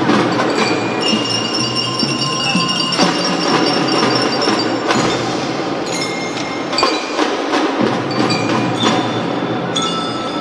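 Children's marching drum band playing live, led by mallet-struck metal-bar glockenspiels ringing out a melody over percussion, with some notes held and ringing for a few seconds.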